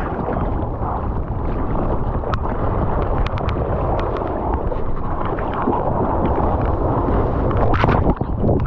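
Ocean surf sloshing and splashing against a bodyboard at water level, with a steady low rumble of waves and wind on the microphone. About eight seconds in, a louder rush of whitewater as a breaking wave washes over the board.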